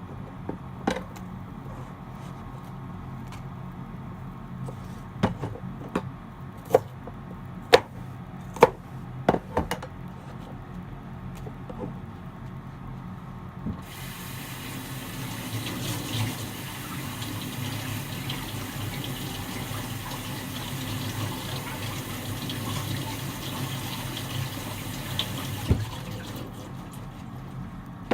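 Kitchen knife striking a cutting board in about ten separate sharp chops over the first ten seconds. Then a kitchen tap runs water into the sink for about twelve seconds and shuts off, with a knock near the end.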